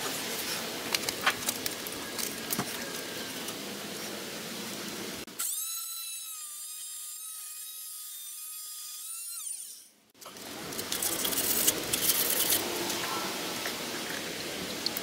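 A corded power tool runs with a steady high whine for about four seconds as it cuts through PVC water pipe, then winds down and stops. Light clicks and knocks of handling come before it, and crackly noise follows it.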